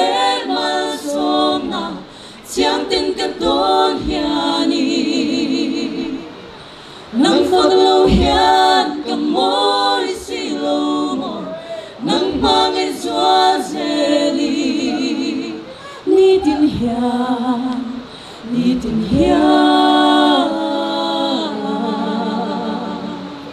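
A mixed a cappella vocal group of men and women singing in harmony into microphones, with no instruments. The song moves in phrases with brief breaks between them, and some notes are held with vibrato.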